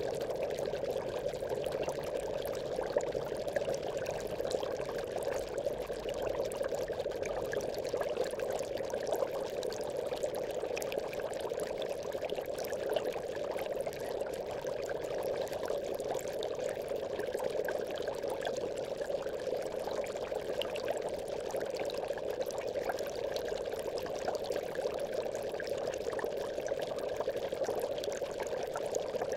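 Aquarium air bubbles: a steady, unbroken stream of bubbling water with many small pops.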